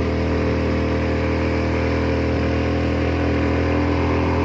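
A vehicle's engine running steadily while driving, an even drone with no revving or change in pitch.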